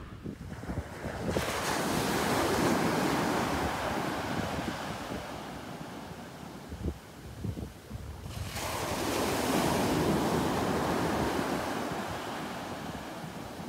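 Sea waves breaking on the shore, twice. Each one starts suddenly as a crashing hiss and then washes out, fading over several seconds.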